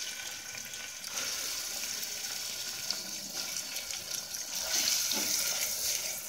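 Onions frying in hot oil in an aluminium pressure cooker: a steady sizzling hiss that grows a little louder about four and a half seconds in.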